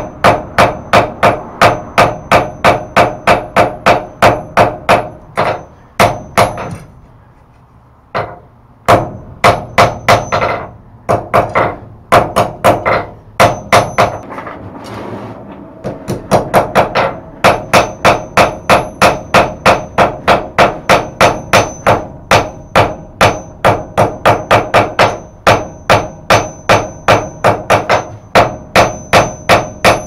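Hand hammer striking hot steel on an anvil at about three blows a second, each blow with a bright ring from the anvil. The rhythm breaks off for a second or so about a quarter of the way in, the strikes come slower and uneven for a while, and then a steady run of directional blows with the flat face resumes, flattening the ridges left from peening the thumb-latch bar.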